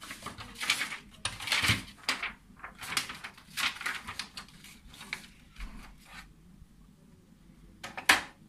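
Sheets of paper rustling and shuffling as a stack is loaded into the plastic input tray of an HP LaserJet M1522nf printer, with irregular knocks of the tray and a sharp click near the end.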